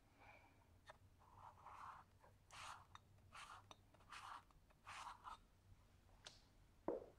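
A steel palette knife scraping paint across paper, about five short, faint strokes. Near the end comes a single sharp tap.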